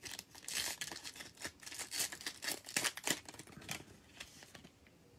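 Plastic cellophane wrapper of a trading card cello pack crinkling and tearing as it is pulled open by hand, a quick run of crackles that dies away about four seconds in.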